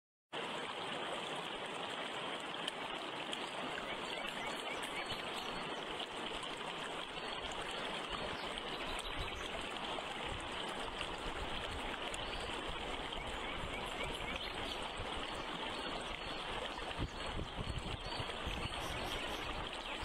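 Steady rushing of flowing water, like a stream, with no breaks or changes.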